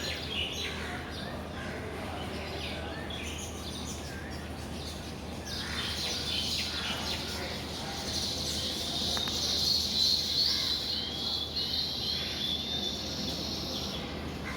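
A colony of baya weavers chirping and chattering at their nests, many short overlapping chirps that grow busier and louder about two-thirds of the way through, over a steady low hum.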